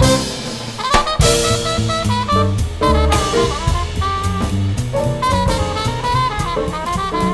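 Upbeat jazz background music with horns and a drum kit keeping a steady beat.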